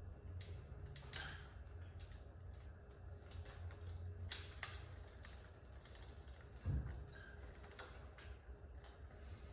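Scattered light clicks and taps of metal parts being handled at a motorcycle carburettor intake, with a sharp click about a second in, another midway, and a dull knock about two-thirds of the way through.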